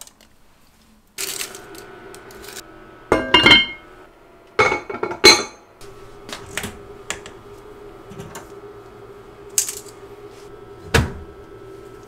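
Metal kitchenware clinking and clattering as utensils are handled, loudest in two bursts about three and five seconds in, with a few lighter clicks and a dull thump near the end. A steady hum runs underneath.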